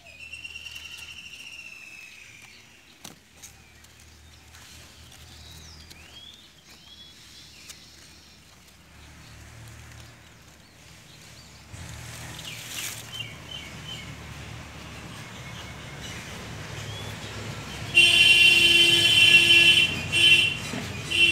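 Outdoor ambience: birds chirping over a low, steady rumble like distant traffic. Near the end a loud, steady pitched tone starts abruptly, holds for about two seconds, stops briefly, and starts again.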